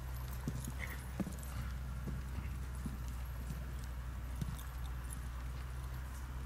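Hoofbeats of a cantering horse on a snow-covered arena: irregular soft thuds, over a steady low hum.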